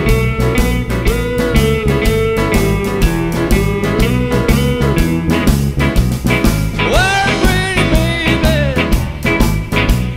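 Blues band playing live: electric guitar, electric bass, drum kit and keyboard keep a steady, driving shuffle while a man sings into a microphone.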